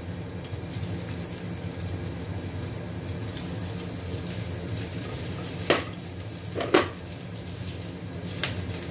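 Black plastic spatula scraping and knocking in a metal wok while garlic and ginger sauté in a little hot oil, over a steady low hum. Three sharp knocks come in the second half.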